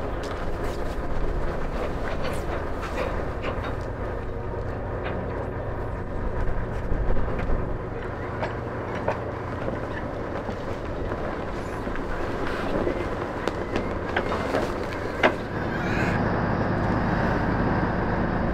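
A ship's engine running with a steady low hum, under scattered short clicks and knocks; the hum grows a little louder near the end.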